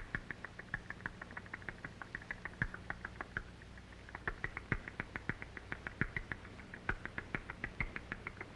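Baby barn owls calling: a fast, uneven run of short, high, squeaky chirps, several a second, typical of hungry nestlings begging for food. Scattered sharp clicks and a low hum lie under it.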